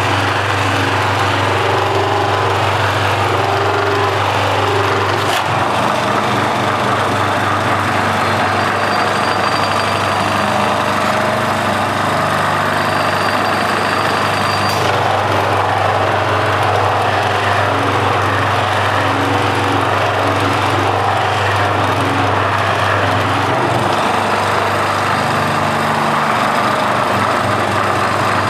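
Bench buffing machine's electric motor running steadily with a low hum, its cloth buffing wheel spinning as a black painted panel is polished from a matte finish to a gloss.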